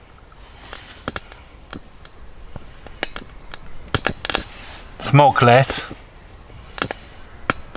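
Sticks burning in a homemade stainless-steel wood-gas stove, crackling with sharp, irregular pops.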